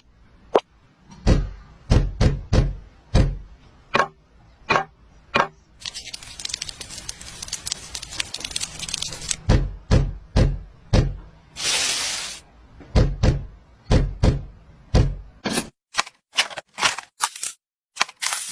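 A series of sharp knocks and taps, some with a deep thud, about one or two a second. A crackling hiss runs for several seconds in the middle, and a short loud hiss comes about twelve seconds in.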